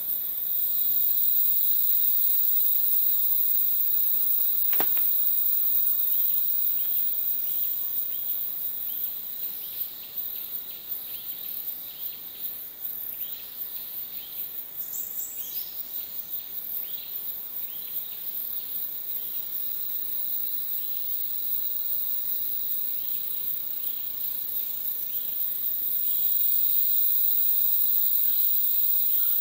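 Rainforest insect chorus: a steady, high-pitched drone of several insects, with short chirps in the middle. The chorus eases off through the middle and swells again near the end, and a single sharp click sounds about five seconds in.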